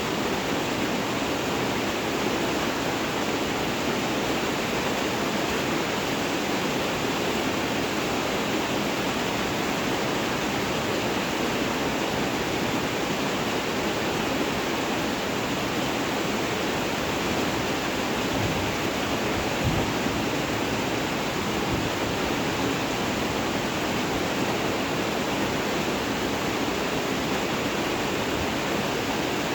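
Steady rainfall, an even continuous hiss with no changes in intensity. A single soft low thump comes about two-thirds of the way through.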